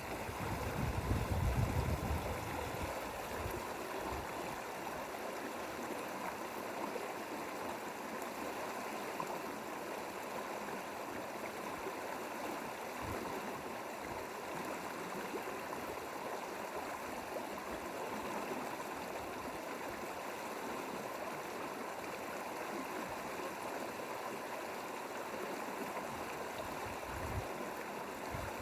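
Mountain valley stream flowing steadily over rocks, an even rushing of water. A low rumble rises over it for the first couple of seconds.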